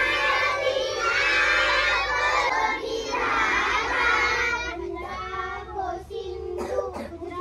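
A group of schoolchildren singing together in unison, a school assembly prayer, loud at first and thinning to fewer voices about two-thirds of the way through. Two sharp knocks come near the end.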